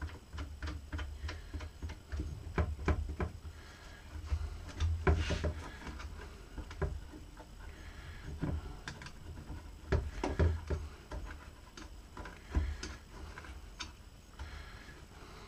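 Plastic clicks and taps from a metal detector's search coil and lower shaft being handled and fitted together. The clicks come irregularly throughout, with a few louder knocks about five and ten seconds in.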